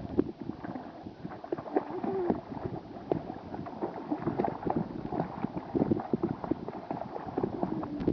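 Pool water splashing and lapping as a child swims, paddling with her hands: an irregular patter of small splashes.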